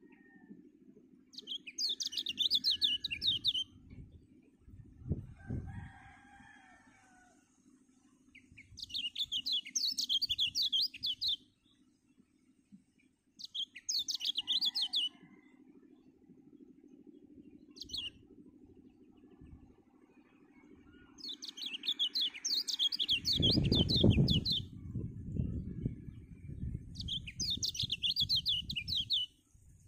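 Caged kecial (white-eye) singing in short bursts of fast, high twittering warble, about six phrases each a second or two long with pauses between. A loud low rumbling noise comes in over the last several seconds.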